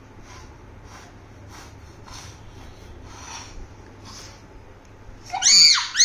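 Repeated soft, airy puffs of a child blowing through a drinking straw into a bubble of slime. Near the end come a child's loud, high-pitched squeals of excitement.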